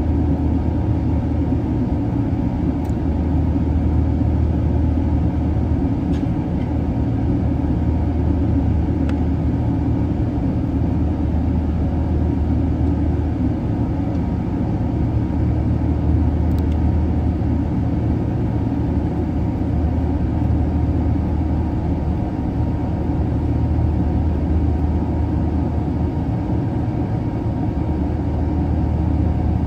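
Airbus A380 cabin noise in flight: a steady low rumble of the jet engines and rushing airflow, heard from inside the cabin.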